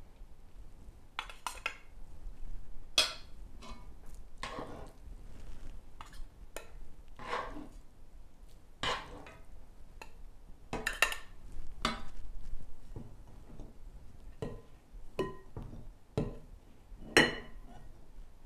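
Steel spoon clinking and scraping against a steel plate and a stainless-steel puttu maker as grated coconut and rice flour are spooned in layers: irregular light clinks and short scrapes.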